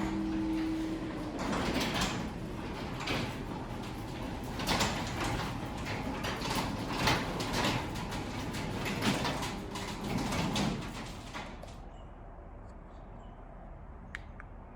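High-lift garage door running along its tracks: a rattling rumble full of clacks for about eleven seconds, then dying away.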